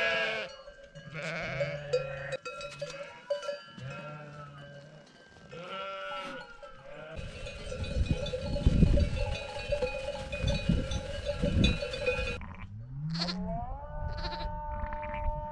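Goats and sheep bleating, with several separate calls in the first half. About seven seconds in, many small livestock bells start clanking together over a low rumble, and more long bleats follow near the end.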